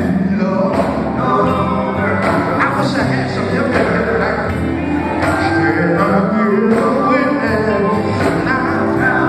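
Live gospel quartet singing: male lead and backing voices over amplified electric guitar and drums, with a steady beat.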